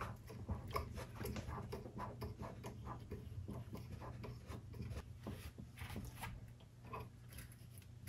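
Park Tool TS-4.2 truing stand's adjusting knob turned by hand to bring the caliper in against the wheel: a faint run of small clicks and rubbing, over a steady low hum.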